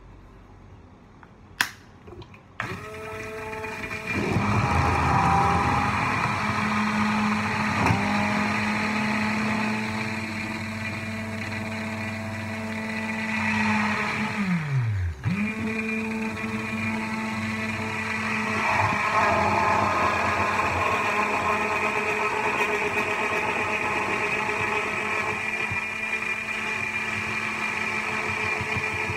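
Hand-held immersion blender whirring in a beaker of hot coffee with butter and coconut oil, frothing it. It starts up a couple of seconds in and runs steadily. About halfway it winds down, its pitch falling, stops for a moment, then starts again.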